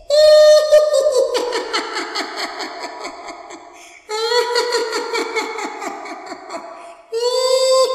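A little girl's high-pitched creepy laugh, three times: each laugh opens on a loud held note and trails off in quick pulses over a few seconds.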